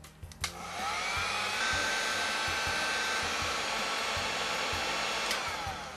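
Electric heat gun switched on with a click about half a second in, its fan whining up to speed and then blowing a steady rush of hot air at the old paint to soften it for stripping. Near the end it is switched off with a click and its whine winds down.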